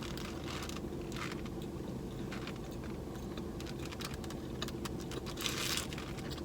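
Faint wet clicks and smacks of someone biting into and chewing a double cheeseburger.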